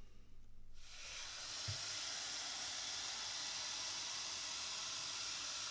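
Kitchen mixer tap running cold water into a plastic measuring jug, a steady rushing hiss as the jug fills. It starts about a second in.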